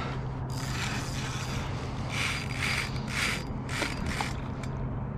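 Fishing reel ratcheting in four short bursts, each about half a second to a second long, as a carp runs against the drag during the fight.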